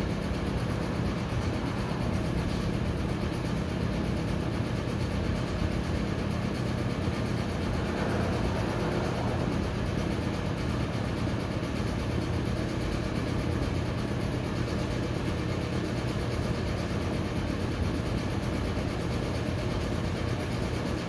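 Steady low machine hum, running evenly throughout with a constant low drone.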